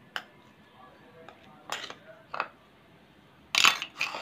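Metal spoon clinking and scraping against a bowl in short, separate strokes while stirring and scooping thick shaving-cream slime, the longest and loudest scrape near the end.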